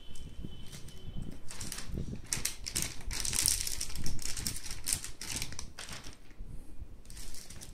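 Crinkling and crackling of a plastic anti-static bag being handled, a quick run of crackles that is loudest in the middle and thins out near the end.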